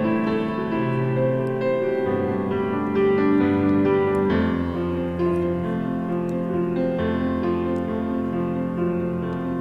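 Background piano music, calm and steady, with held notes changing every second or so.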